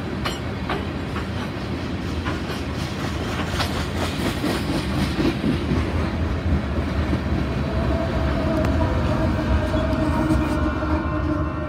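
Freight train passing close by: steel gondola cars rolling with wheels clicking over the rail joints. From about six seconds in a Union Pacific diesel locomotive within the train comes past, adding a steady engine tone, and the sound grows louder as it draws level.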